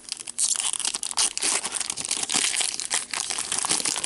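A hockey card pack's wrapper being torn open and crinkled by hand: a dense, crackly rustle with many quick crackles, starting about half a second in and easing off near the end.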